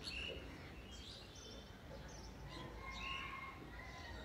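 Faint sizzle of ginger-garlic paste frying in bubbling mustard oil as it is stirred, with birds chirping in short calls throughout.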